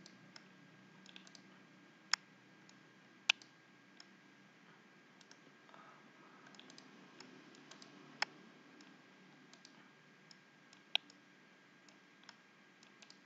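Computer mouse clicking now and then, a few sharp single clicks spread over several seconds with fainter ticks between, over faint room hiss.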